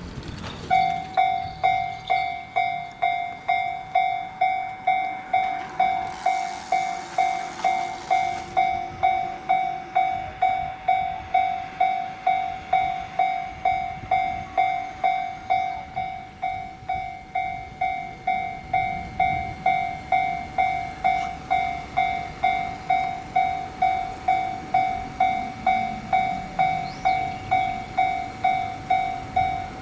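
Japanese railway level crossing warning bell starts about a second in and rings on steadily at about two strokes a second, signalling that a train is approaching and the barriers are down.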